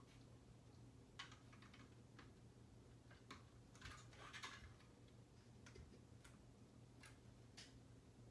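Faint, scattered clicks and light rattles of plastic Lego bricks being handled and pressed together, with a small flurry of clicks about four seconds in.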